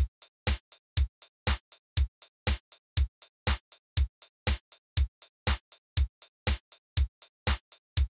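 Background music: a drum-machine beat playing on its own, with a strong kick about twice a second and lighter hits between.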